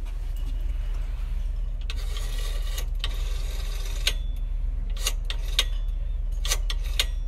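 Rotary dial of a black coin payphone being turned and let go: a series of separate sharp mechanical clicks, more of them in the second half, over a steady low hum.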